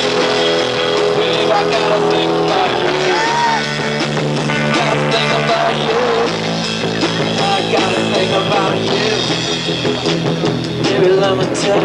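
Live rock band playing an instrumental passage on electric guitars, keyboard and drum kit, with a lead line of bending notes over steady chords.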